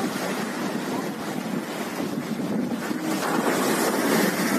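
Strong wind buffeting the phone's microphone, mixed with storm waves breaking and surging over a sea wall, the noise growing louder about three seconds in.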